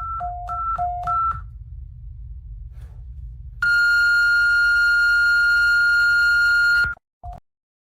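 Emergency alert tones: three quick pairs of alternating high and low beeps, then a low rumble, over which a single steady high tone sounds for about three seconds and cuts off, with one short low beep near the end.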